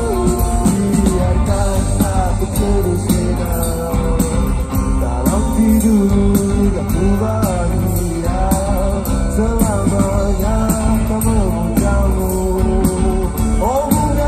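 A live rock band playing with electric guitars, drums and bass, heard from within the crowd. The sound is loud and heavy in the low end.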